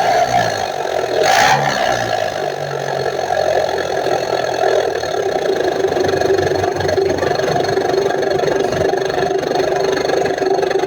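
Mitsubishi L300 pickup's engine running through a Serigala aftermarket exhaust muffler, tuned for a deep 'ngorok basah' (wet snoring) growl. It is blipped up and down in the first few seconds, with a short rush of noise about a second and a half in, then settles to a steady idle.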